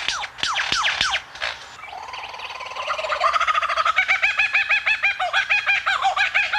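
Male superb lyrebird singing: a run of quick downward-sweeping whistled notes, then from about two seconds in a loud, rapid, rhythmic warbling phrase of about five notes a second that builds and cuts off near the end.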